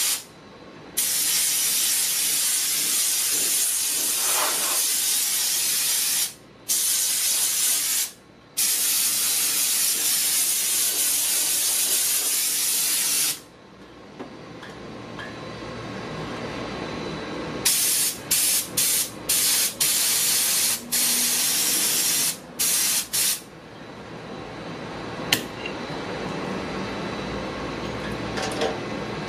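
Air-powered engine-cleaning gun spraying water drawn up its suction hose: a loud hiss of compressed air and water mist, held for long stretches with brief breaks where the trigger is let go. It then fires a run of short blasts. From the middle on, a steady low machine hum builds underneath.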